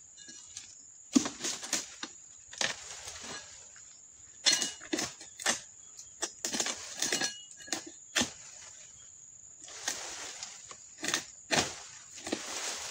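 Oil palm harvesting chisel (dodos) on a long pole chopping into the frond bases of an oil palm: a string of sharp chops and knocks at uneven intervals. A steady high insect buzz runs underneath.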